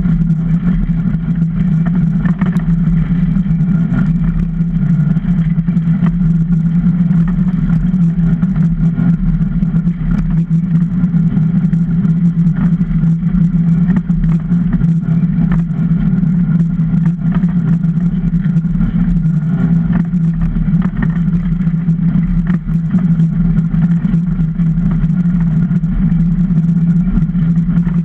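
Runners of a Super DN iceboat skimming over clear lake ice at speed: a steady, loud low rumble carried through the hull, with scattered small clicks and ticks.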